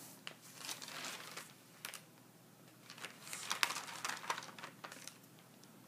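Irregular rustling and crinkling handling noise close to the microphone, in two spells, the second the louder.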